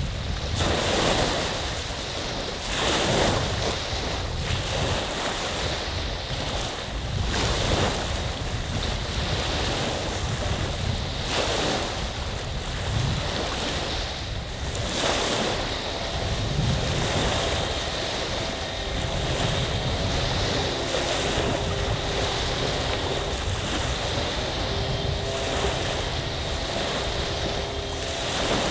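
Small lake waves rolling in and washing on the shore, surging every two to three seconds, with wind buffeting the microphone.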